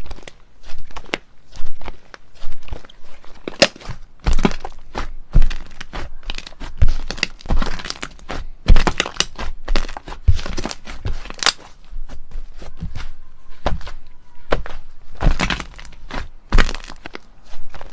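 Slime being pressed, squeezed and poked by hand, giving irregular sharp pops and crackling clicks, several bunched into louder clusters.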